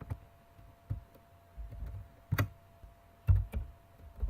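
Computer keyboard typing: about eight separate keystrokes at an uneven pace with dull thuds, one louder keystroke about halfway through.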